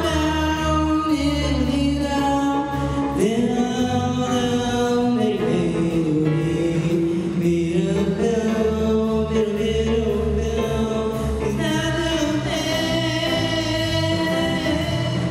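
Live singing with a choir and school orchestra in a slow song: long held vocal notes over sustained orchestral accompaniment.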